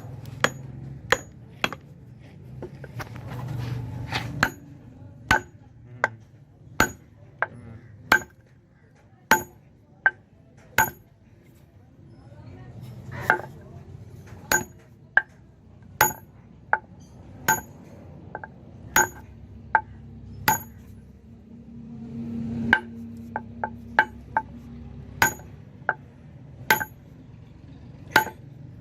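A hammer striking metal again and again, each blow sharp with a brief high ring, at an uneven pace of about one to two blows a second with a couple of short pauses.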